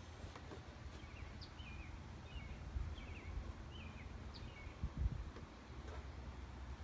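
Faint outdoor ambience: a small bird calling a quick series of short chirps for about three seconds, over a low steady rumble, with a soft bump about five seconds in.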